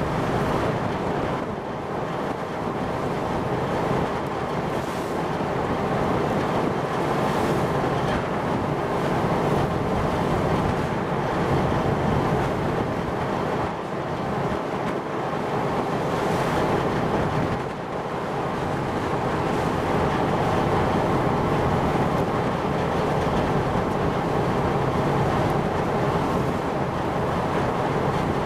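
Steady rush of wind on the microphone and sea water at open sea, with a low drone underneath and small dips in level a few times.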